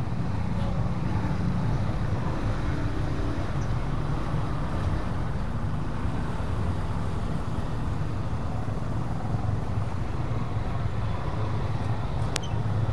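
Road traffic of motor scooters and cars crossing a railway level crossing at low speed, their engines running in a steady low rumble. A single sharp click sounds near the end.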